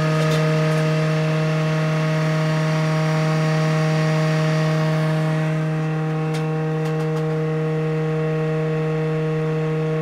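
IDE DVD drive spinning a disc at high speed while it is read, a loud steady drone with a whine like a fire siren, made noisier by the cheap, flimsy case. A few faint clicks come near the middle.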